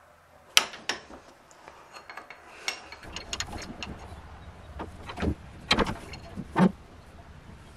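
Old cast-iron bench vise being screwed tight by hand: its loose sliding handle bar clinks and knocks against the screw ends as it is turned. About a dozen sharp metal clinks, irregular, the loudest soon after the start and two more near the end.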